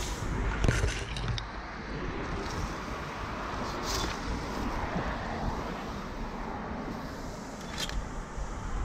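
Birch leaves and twigs rustling and scraping as a climber moves through the crown and grabs branches, with a few sharp clicks.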